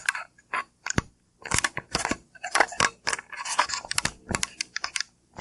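Handling noise: a run of irregular clicks, scratches and rubs from the camera being handled close to its microphone.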